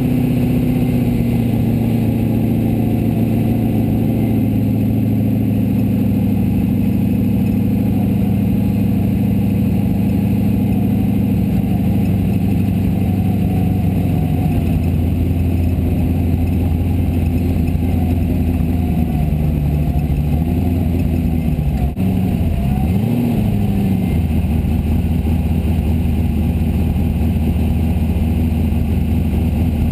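Formula Offroad buggy engine heard from inside the cockpit, running steadily at low revs, with one quick rev up and back down a little past two thirds of the way through.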